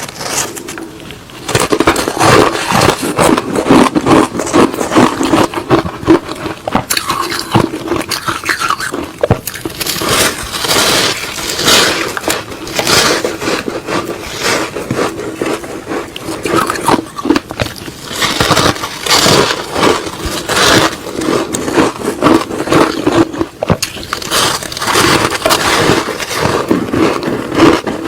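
Frozen matcha ice being bitten and chewed close to the microphone: a dense run of crunching and cracking, bite after bite, starting about a second and a half in.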